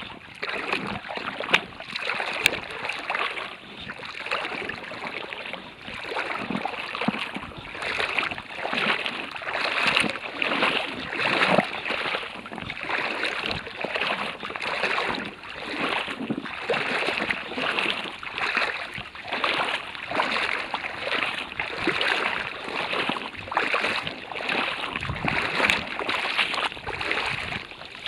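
Water splashing and sloshing in a rough rhythm, about one stroke a second.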